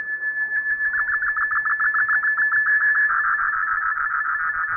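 Shortwave digital-mode broadcast signal, two MFSK32 transmissions sent at once: a steady high tone with a rapidly pulsing warbling tone beneath it that comes in about half a second in and grows louder. The tones carry text and pictures.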